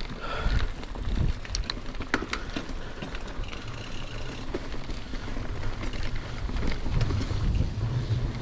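Mountain bike being ridden over a rough dirt trail: a steady rumble of tyres and wind on the microphone, with a few sharp clicks and knocks of the bike rattling about one and a half to two and a half seconds in.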